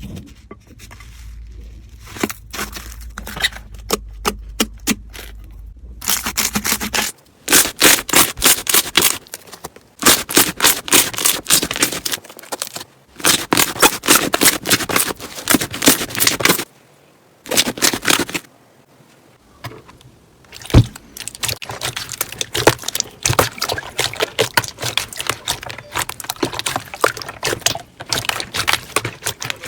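Slime being squeezed and pressed by hand, giving off fast crackling and popping clicks in bursts a few seconds long with short pauses between them, typical of crunchy slime.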